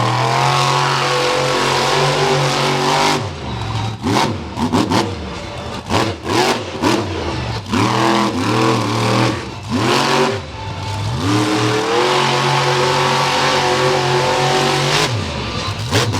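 Monster truck engine revving hard, held at high revs for a few seconds, then blipped up and down several times in quick succession before holding high again.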